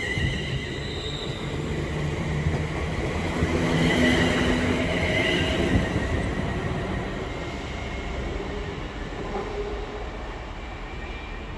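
British Rail Class 350 Desiro electric multiple unit pulling away, its traction equipment whining with several pitched tones over the rumble of the wheels. It is loudest about four to six seconds in, then fades as it moves off.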